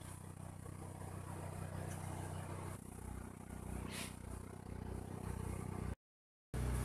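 A steady low engine-like drone with a single light click about four seconds in; the sound drops out for half a second near the end.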